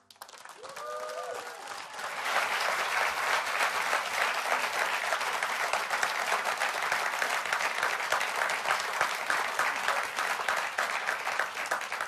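Large audience applauding, the clapping swelling over the first two seconds and then holding steady.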